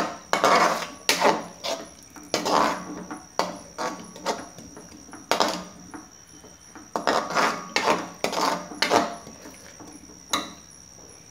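Metal slotted spoon scraping and knocking against a nonstick frying pan as thick masala paste is stirred and fried, in irregular strokes about once or twice a second that thin out near the end.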